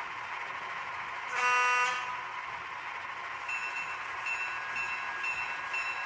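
ESU LokSound V5 micro sound decoder in an N scale EMD E5A, played through its tiny sugar-cube speaker: a short locomotive horn blast about a second in, then the locomotive bell starts ringing at about two strokes a second, over the steady sound of the dual EMD 567 prime movers.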